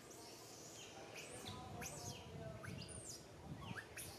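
Baby macaque crying in a series of short, high squeals that fall steeply in pitch, about two a second.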